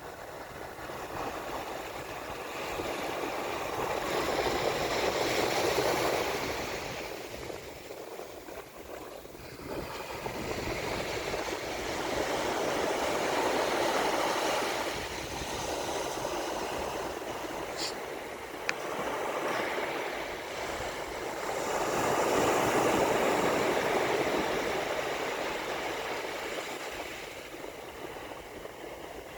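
Sea waves washing onto a sandy beach, the surf swelling and ebbing in slow surges about nine seconds apart. A single brief click sounds about two-thirds of the way through.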